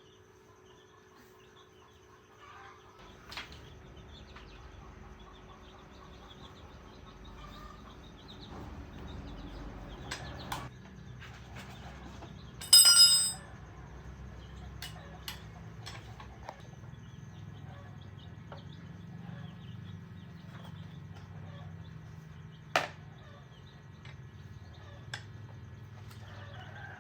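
Now and then a sharp clink of hand tools on metal, over a steady low hum, with one short, loud, high-pitched squawk about halfway through.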